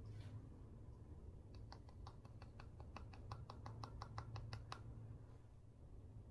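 A quick run of about twenty light, sharp clicks, roughly six a second, lasting about three seconds, over a faint steady hum.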